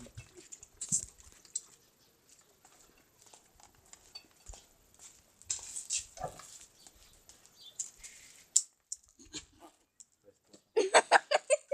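Kittens mewing now and then over light rustling and taps, with a quick run of rapid high calls near the end.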